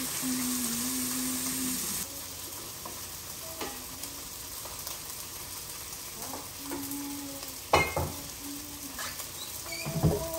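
Potatoes, onions, peppers and sausage sizzling in a frying pan on a gas stove while being stirred. The sizzle is louder for the first couple of seconds and quieter after. Scattered scrapes and knocks of a utensil against the pan run through it, the loudest a sharp metal clank about eight seconds in and another knock near the end.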